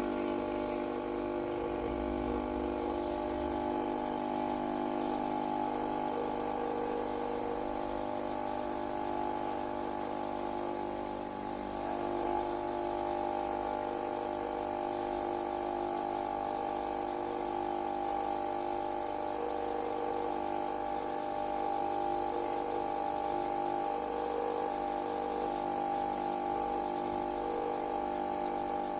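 Gaggia Viva Deluxe espresso machine's vibratory pump running with a steady hum, pushing water through the machine to prime it.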